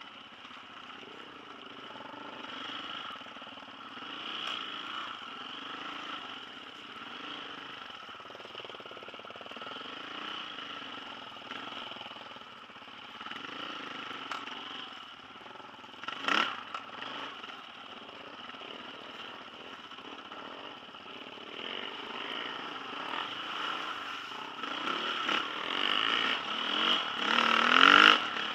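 Dirt bike engine heard on board while riding, its pitch rising and falling with the throttle. There is a sharp knock about halfway through, and near the end the engine revs up, the loudest part.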